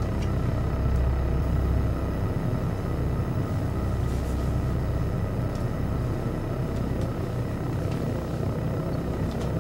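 A steady low rumbling drone, with a few faint clicks.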